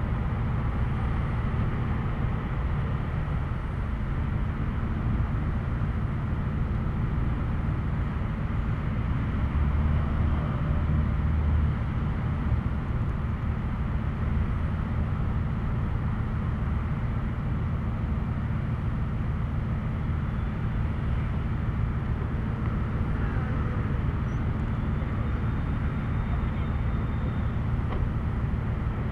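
Steady low rumble of road traffic and vehicles around a gas station, with no distinct events standing out.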